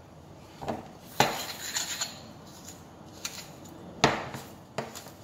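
Metal spoon knocking and clinking against a glass mixing bowl while soft butter is scooped in: a few sharp clinks at irregular intervals, the loudest about a second in and about four seconds in.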